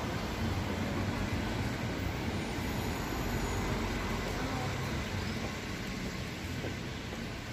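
Steady low rumble of a road vehicle's engine and tyres, easing slightly near the end.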